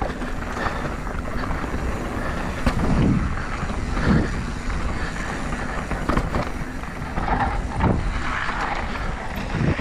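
Downhill mountain bike riding down a dirt trail: steady tyre and rolling noise with wind on the microphone, broken by several thuds from bumps.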